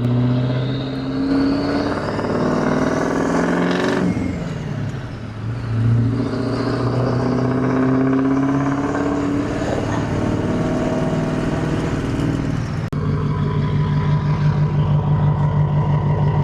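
Built 6.0 Powerstroke V8 turbo-diesel with a large S400 turbo revved hard twice, engine pitch and a high turbo whine climbing, then falling away sharply when the throttle is released. About 13 seconds in it settles into a steady idle with an even pulsing beat.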